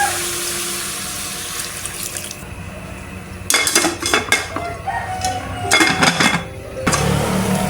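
Kitchen work: a pan's sizzle fades, then dishes and utensils clink in two short clusters.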